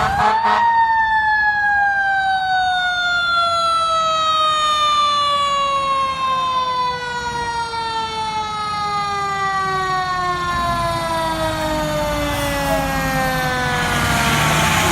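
Fire truck siren winding up briefly, then falling slowly and steadily in pitch as it winds down.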